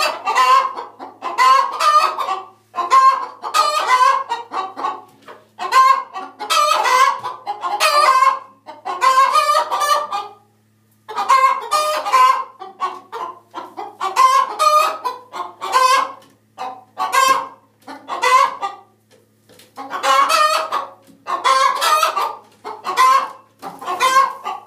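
Chickens clucking loudly, one call after another, with short breaks about 11 seconds in and again around 18 seconds.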